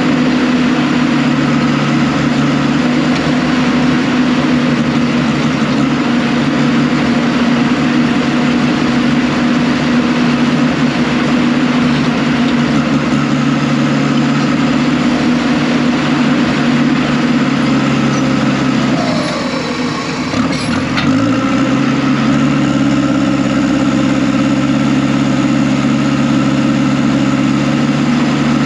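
Diesel engine of heavy earthmoving equipment running steadily at working speed. About 19 seconds in its pitch drops sharply and climbs back within two seconds, as the engine is briefly pulled down. A couple of faint knocks come at the same time.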